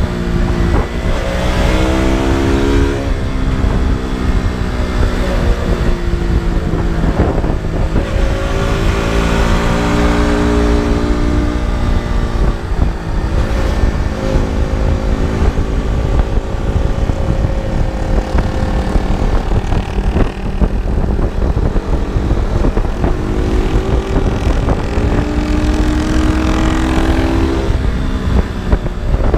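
KTM RC 200's single-cylinder four-stroke engine and exhaust under way, revving up and dropping back several times: rising pitch through roughly the first three seconds, again from about eight to twelve seconds, and again near the end, with steadier running in between.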